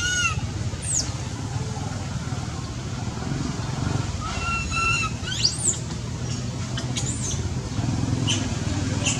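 Baby macaque crying with thin, high-pitched coo calls: one held note at the start, two more a little before five seconds in, then a quick rising squeal. Short high squeaks come and go over a steady low rumble.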